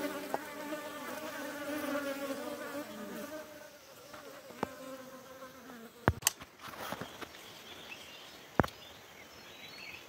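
A flying insect buzzing with a steady hum that dips slightly in pitch and fades out about three and a half seconds in. Then a few sharp clicks or knocks, the loudest pair about six seconds in and another single one later.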